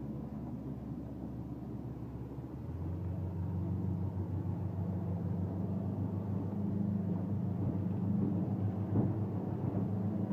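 Boat engine running steadily, heard from inside the cabin; it picks up and gets louder about three seconds in.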